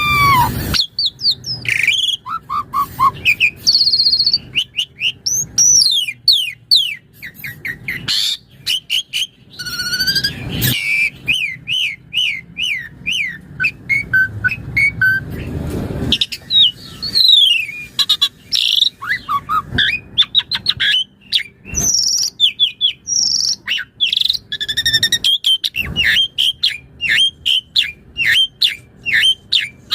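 Asian pied starling (jalak suren) singing in full song: a fast, varied run of whistles, rising and falling glides and chirps, broken a few times by short harsh rasping notes. The song is packed with mimicked phrases (isian).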